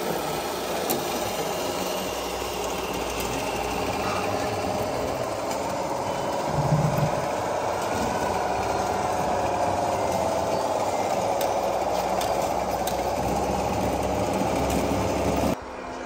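Radio-controlled scale construction machines running: a steady mechanical whine whose pitch wavers up and down, with a short low thump about seven seconds in. The sound drops abruptly to a quieter level shortly before the end.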